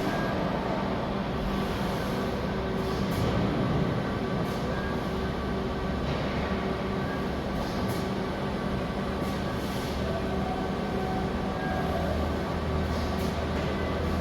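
Steady industrial machinery noise of a robotic welding line, with a few faint steady tones and several short high hisses.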